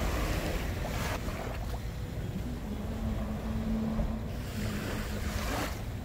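Small waves washing up on a sandy beach, two swashes about four seconds apart, over a steady rumble of wind on the microphone. From about two seconds in, a steady low hum runs underneath.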